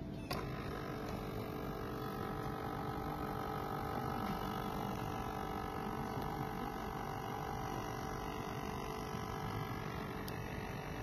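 Kids' instant print camera's built-in thermal printer running after a button click: a steady mechanical whine of several fixed tones as the motor feeds paper and prints the photo.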